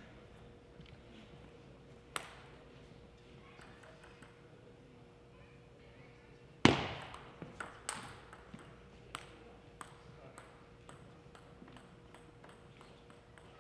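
Table tennis ball clicks. There is a single tap about two seconds in, then a sharp, loud hit around the serve, followed by a quick run of paddle hits and ball bounces that thins out into scattered ticks.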